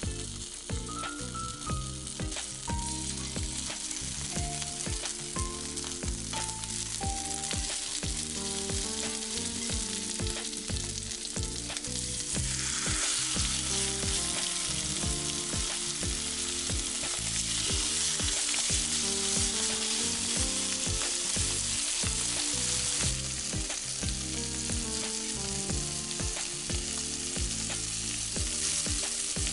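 Sizzling of cherry tomatoes and yellow bell pepper frying in oil in a frying pan. About twelve seconds in, the sizzle becomes much louder as chicken thigh is laid in skin-side down, and it stays loud.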